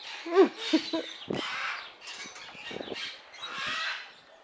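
Macaw giving a series of harsh, raspy squawks, several short calls in a row.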